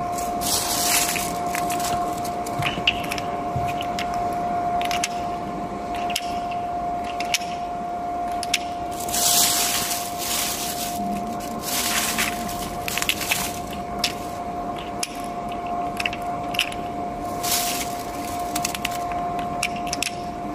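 Steel balls and plastic spacer blocks clicking and knocking as they are pushed by hand into the raceway of a slewing bearing, with several short rustling swishes and a steady high hum throughout.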